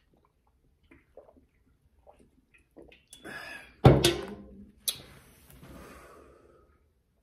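Close handling noise: rustling, then a loud thump about four seconds in and a sharper knock a second later, as a hand reaches out to the camera at the table, followed by fading rustle.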